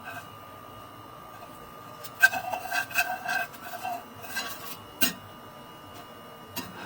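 Light clinks and rattles of hard objects for about a second and a half, a few more a little later, then a single sharp click, over a faint steady high-pitched whine.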